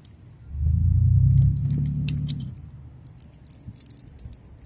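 Crinkling and clicking of a small clear plastic bag being handled as a toy figure is taken out, with a loud low rumble for about two seconds near the start.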